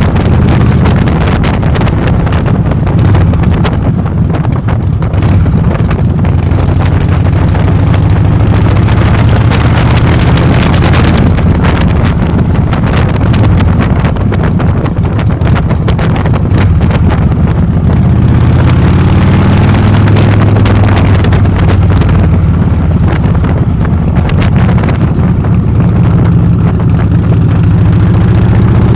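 Motor scooter's small engine running while riding, its pitch rising and falling now and then with the throttle, with wind buffeting the microphone.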